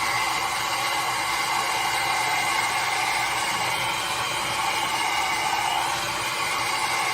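Handheld ionic hair dryer blowing steadily, a constant whoosh of air with a faint whine from its motor, as it is used to dry wet hair.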